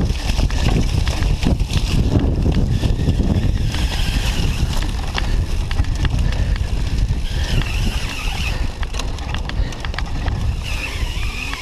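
Cyclocross bike ridden fast over rough, muddy ground: continuous rattling and knocking from the bike and tyres, under heavy low wind buffeting on the handlebar-mounted microphone.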